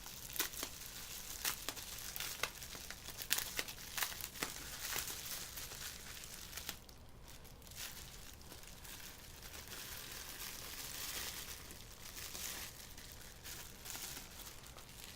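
Packaging crinkling and rustling as a synthesizer module is unwrapped by hand, with many sharp crackles in the first half and softer, steadier rustling after a short pause about seven seconds in.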